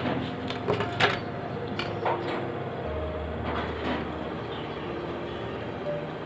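A few light knocks and soft handling sounds as a steel ruler and a tape measure are set down on folded cotton cloth, mostly in the first two seconds, over a steady background hiss.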